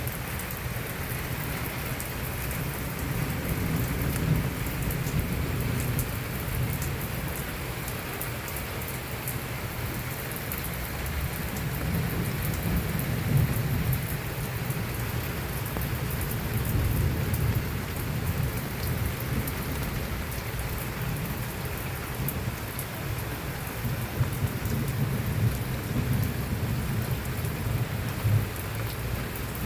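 Heavy rain falling steadily, with a low rumbling that swells and fades several times.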